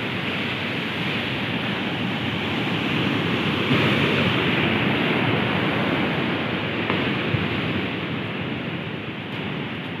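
Rough storm sea: surf breaking and washing ashore in a continuous rush. It swells a little midway and eases slightly toward the end.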